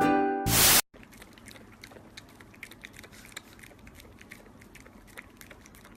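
Music cuts off in the first second, followed by a short burst of loud hiss. Then faint, irregular small clicks and crackles continue.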